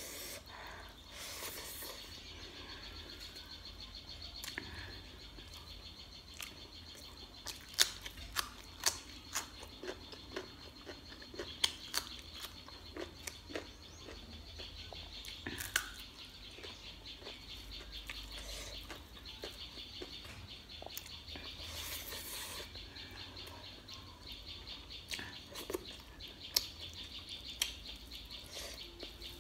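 Close-miked eating sounds of chicken curry and rice eaten by hand: chewing, with sharp wet mouth smacks and clicks scattered through, over a steady high chirring in the background.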